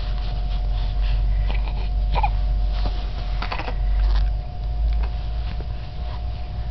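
A baby making brief small vocal sounds: a short squeak about two seconds in and a few soft catches of breath around three and a half seconds. Underneath runs a steady low rumble and a faint steady hum.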